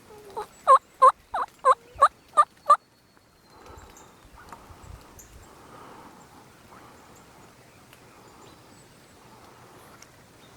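Turkey yelps: a run of about eight loud notes, roughly three a second, each dropping in pitch, lasting just over two seconds. Faint low whispering follows.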